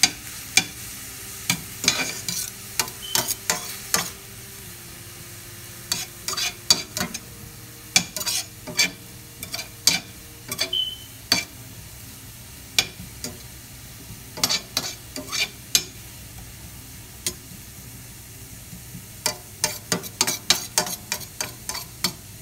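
Chopped onions and garlic sizzling in butter in a stainless steel skillet as they cook down. A metal slotted spoon stirs them, clicking and scraping against the pan in spells with short pauses between.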